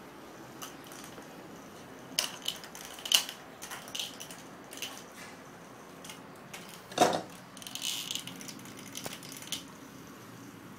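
A puppy playing with small plastic toys on a tile floor: scattered clicks and clatters, with two louder knocks about three and seven seconds in and a short crinkly rustle just after the second.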